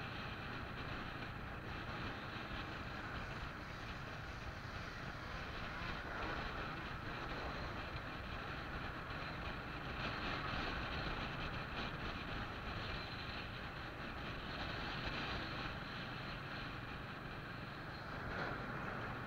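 Steady driving noise heard from a camera on a moving vehicle: engine hum under road and wind noise, with no break. It grows briefly louder near the end as an oncoming semi-truck passes.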